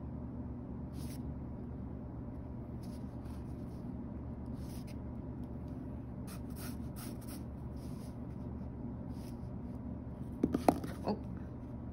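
Graphite pencil making short, light sketching strokes on sketchbook paper every second or two, with a brief cluster of louder knocks near the end.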